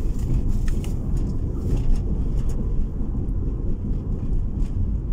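Nissan car driving, heard from inside the cabin: a steady low rumble of engine and tyres on the road, with a few faint ticks.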